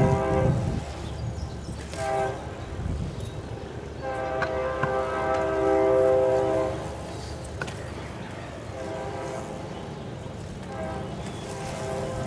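A chord-like horn sounding in several blasts: a long one ending early, a short one about two seconds in, a long one from about four to nearly seven seconds, then fainter long blasts in the second half, over a low rumble.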